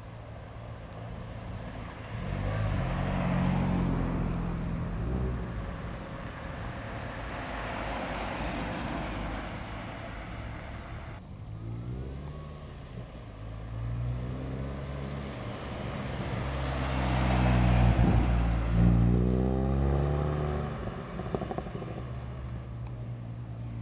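Two new-shape Mini hatchbacks drive past one after the other, each engine note swelling and fading as the car goes by. The second, louder pass climbs in pitch as the car accelerates away.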